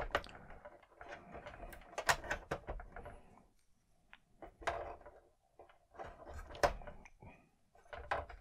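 Hard plastic parts of a Hasbro Slave I toy ship clicking and knocking as the small cannons are pushed onto the hull, with handling rustle in between. The clicks are irregular, several of them sharp and loud.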